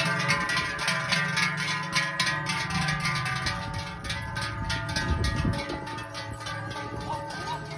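Cowbells of the herd ringing in a steady, rhythmic clang, many bells sounding together with long ringing tones.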